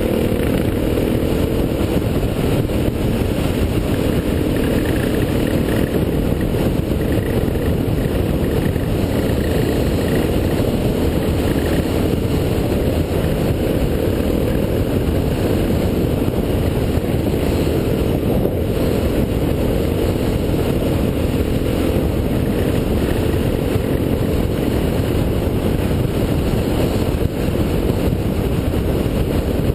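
Motorcycle engine running steadily at road speed, under heavy wind rumble on the bike-mounted camera's microphone.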